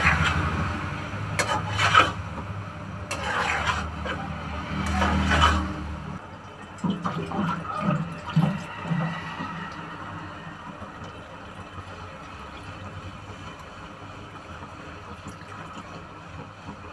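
Slotted spatula scraping and stirring egg curry in a kadai, a few strokes in the first six seconds over a low hum that cuts off suddenly, then a few low knocks and a quiet steady hiss from the simmering pan. Near the end, water is poured into the curry.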